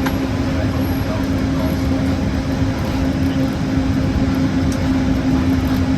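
Steady hum and low rumble inside a Disneyland Mark VII monorail cabin, with one even tone held throughout.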